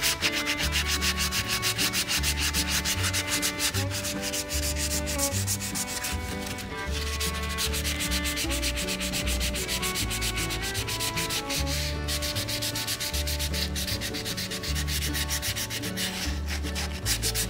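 Background music with a bassline stepping between held low notes and sustained higher notes, over a fast, even scraping rhythm.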